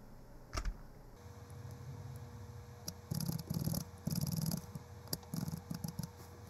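Computer keyboard cursor keys tapped in quick runs of clicks, starting about three seconds in, after a single key click near the start.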